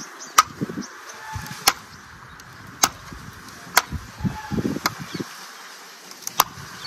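Doors, boot lid and bonnet of a 1:24 diecast Mercedes-Benz W140 model car being pressed shut by hand, each snapping closed with a sharp small click: six clicks about a second apart, with low handling noise between them.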